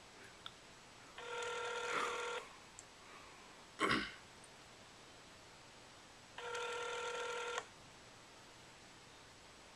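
Telephone ringback tone heard through a mobile phone's speakerphone: two rings of a little over a second each, about five seconds apart, as the transferred call rings unanswered. Between the rings, about four seconds in, there is one short, loud noise close to the microphone.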